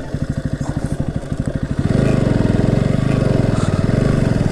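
Motorcycle engine running at low revs with an even beat of firing pulses, getting louder about two seconds in as it picks up.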